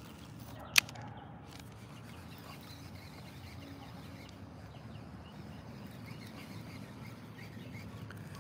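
Faint bird chirps over a steady low rumble, with one sharp click about a second in.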